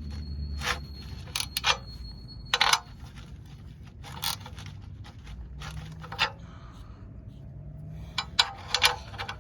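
Sharp metallic clinks, knocks and scrapes of hand tools and radiator fittings being handled, about a dozen scattered hits with the loudest cluster near the end.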